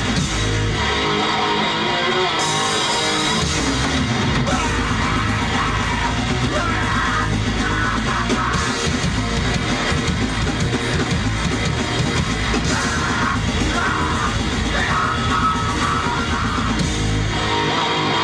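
A live heavy band plays a fast, loud song on electric guitar, bass and drums, with yelled vocals.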